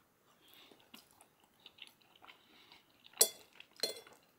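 Faint chewing of a mouthful of food, then a metal fork clinking and scraping against a plate twice near the end.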